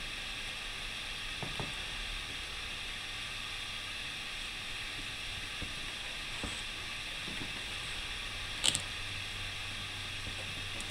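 A steady hiss of background noise, with a few faint soft knocks and rustles as a bra is handled on a table. One brief, sharper rustle comes near the end.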